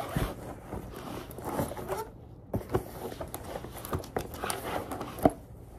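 Ring binders being pushed sideways into a backpack: rustling and scraping against the fabric, with a few sharp knocks, the loudest about five seconds in.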